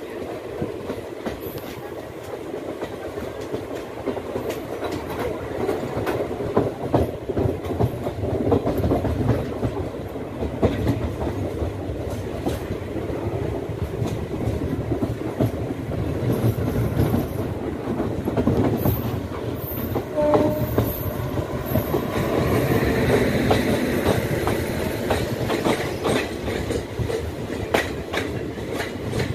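Passenger express coach running at speed, its wheels clattering rhythmically over the rail joints, heard close from an open door. It grows louder and brighter about two-thirds of the way through.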